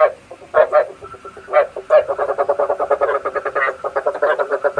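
Frogs croaking: a few separate croaks in the first two seconds, then a fast run of croaks about ten a second, over a faint steady trill. Frog calls of the kind played as a lure to draw frogs into night traps.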